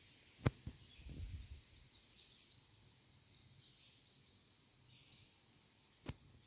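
Quiet outdoor ambience with a faint steady high hiss. Two sharp clicks, about half a second in and near the end, and a brief low rustle a second or so in.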